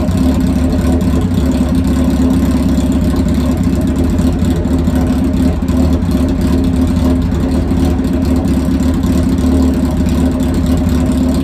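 2005 Suzuki Hayabusa's inline-four engine running steadily, just started after a fresh oil change.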